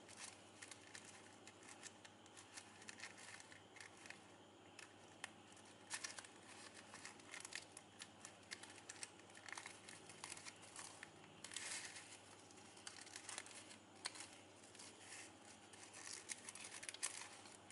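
Faint, irregular crinkling and rustling of shiny plastic ribbon as fingers thread the strand ends through the loops of a folded ribbon rose and pull them through.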